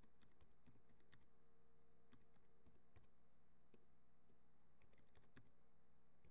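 Faint typing on a computer keyboard: irregular keystrokes, some in quick clusters, over a low steady hum.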